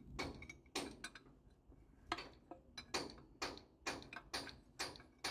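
Faint metallic clicks of a spanner working a bolt on a steam locomotive's boiler mount bracket: a couple of clicks in the first second, then a regular tick about twice a second from about two seconds in.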